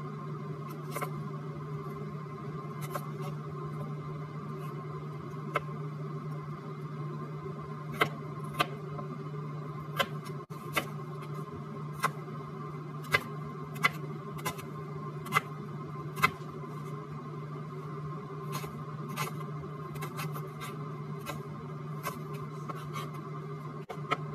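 Kitchen knife chopping carrot and onion on a plastic cutting board, heard as a string of sharp, irregular taps that come thickest in the middle, over a steady low hum.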